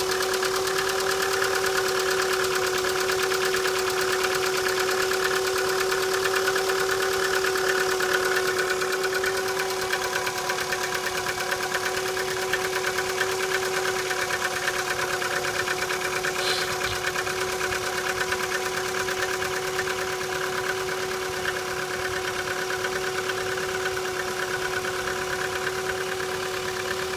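Chevrolet Cruze engine idling after a cold start, a steady tone running over a fast, even ticking. This is the extraneous, very unpleasant noise that the owner hears on cold starts, even in light frost, and that later goes away.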